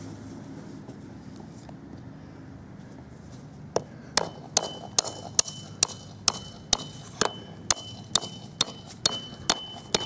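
A hammer driving an edging fastener (stake) through plastic landscape edging into the soil: after a few seconds of quiet, steady strikes begin about four seconds in, roughly two a second, each with a short ringing note.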